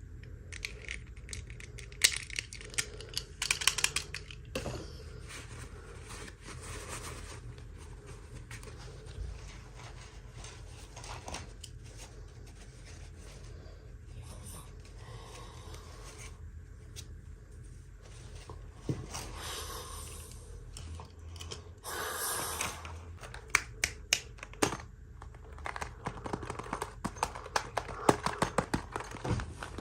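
Doll packaging handled by hand: scattered taps and clicks, with two short rustles of packaging about two-thirds of the way through and a run of quick taps near the end.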